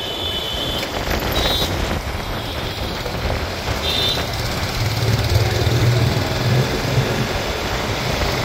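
Bajaj Pulsar 220F motorcycle ridden through city traffic: engine running under steady road and wind noise. Short horn beeps from other vehicles sound near the start and about four seconds in, and a deeper engine drone swells from about five to seven seconds in.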